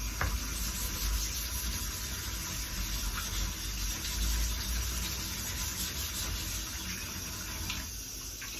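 Soft Norton waterstone rubbed side to side on wet 320-grit wet-and-dry sandpaper over a shaping plate: a steady wet, gritty scraping that dies down near the end. The stone's convexed face is being lapped clean of swarf for its next honing.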